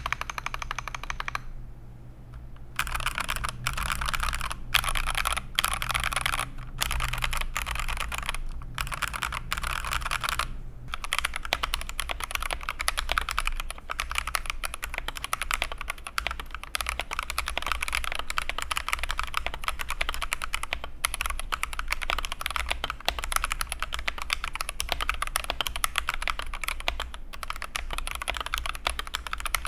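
Typing test on a mechanical keyboard fitted with new Akko switches: fast, continuous key clacking. There is a short pause about two seconds in and a few brief breaks during the first ten seconds, then almost unbroken typing.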